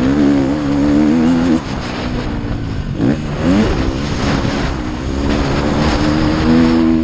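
Motocross bike engine at high revs. It drops off throttle about a second and a half in, revs up quickly twice in the middle, and then holds high revs again, climbing near the end.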